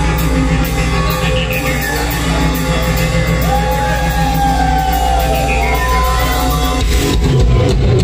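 Live rock band playing loud: a steady low drone with sliding tones over it, changing about seven seconds in as the music becomes fuller and busier.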